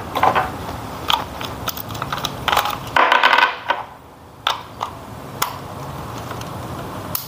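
Scattered clicks and scrapes of a plastic toy RC remote control being handled while its battery compartment is opened, with a louder scrape lasting under a second about three seconds in.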